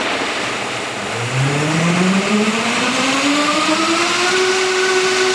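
Vitamix high-speed blender running on its automatic cream program, blending soaked cashews and water. Loud whirring with a motor tone that rises steadily in pitch from about a second in, then holds steady near the end.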